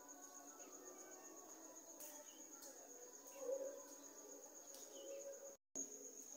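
Crickets chirping: a faint, steady, rapid high-pitched trill, with a brief dropout about five and a half seconds in.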